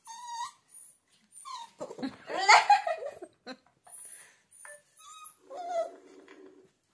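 Puppy whining and yelping in short high-pitched cries as it struggles to get free of a cloth it is stuck in, the loudest cry about two and a half seconds in.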